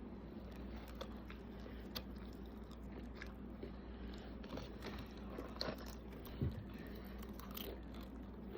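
A person chewing and biting food close to the microphone, with small crunches and mouth clicks scattered throughout. A short low thump stands out about six and a half seconds in.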